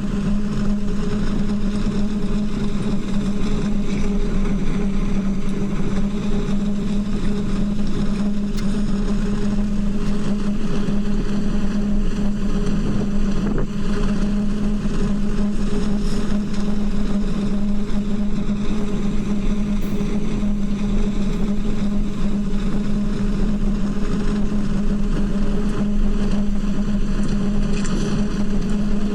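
Wind blowing through the steel pipes of the Singing Ringing Tree sound sculpture: a steady, loud, low hum with a fainter higher tone above it, over a constant rush of wind.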